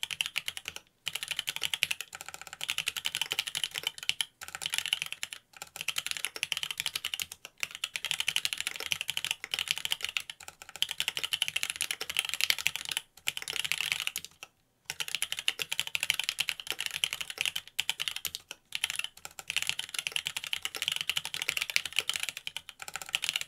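Fast, steady typing on a Mont Cervin custom mechanical keyboard fitted with Cherry Wyse Black linear switches on a carbon fiber plate: a dense run of key presses with short pauses every few seconds.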